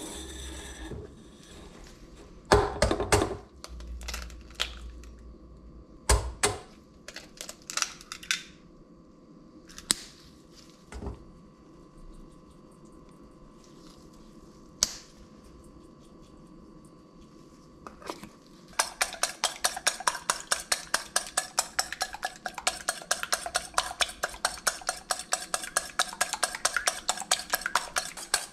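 Scattered knocks and clinks as eggs are cracked into a stainless steel mixing bowl and the bowl is handled. About two-thirds in, fast, even whisking starts: a utensil beating eggs in the steel bowl, clinking metal on metal several times a second.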